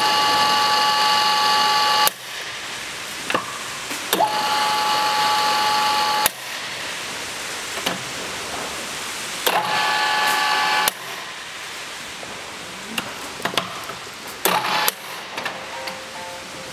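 FORADIA GK 50 radial drill's spindle drive switched on and off three times, each run a steady gear whine of one to two seconds with a slightly different pitch, as the speeds are changed. Sharp clunks and clicks of the machine's levers and controls fall between the runs.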